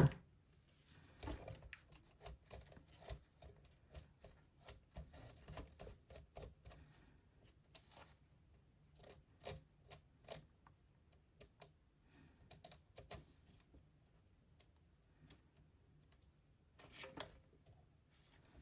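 Faint, irregular clicks and brief scraping as the insides of a cassette data recorder are cleaned and handled by hand, plastic and metal parts tapping and rubbing.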